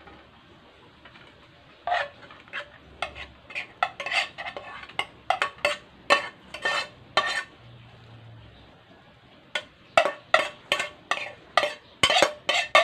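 Frying pan clinking and scraping against a metal dish as rice is emptied out of it: a run of sharp metallic clinks, about two a second, starting about two seconds in, pausing for a second or two past the middle, then coming faster near the end.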